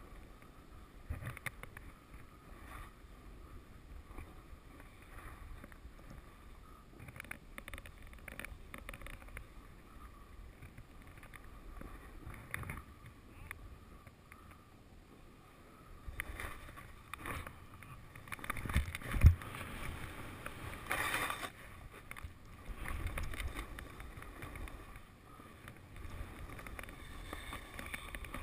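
Skis scraping and swishing over spring snow during a downhill run, an uneven hiss with small knocks. It gets louder past the halfway point, with a sharp knock about two-thirds of the way through.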